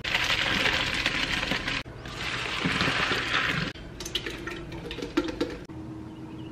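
Water pouring hard, in two stretches split by an abrupt cut about two seconds in. It is followed by about two seconds of light clinks and knocks, then a sudden drop to a faint steady hum near the end.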